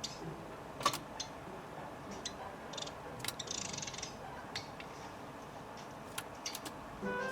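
Scattered sharp clicks and small taps, with a short rustle about three and a half seconds in: a white Java sparrow moving about its cage.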